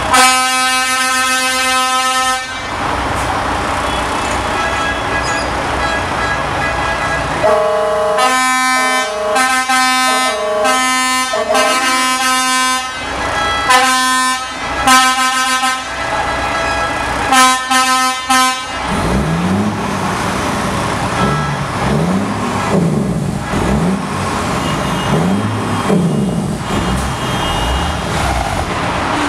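Truck air horns honking: a long blast, then a long run of short toots in a stuttering rhythm over heavy traffic noise. In the last third a large engine rises and falls in pitch several times.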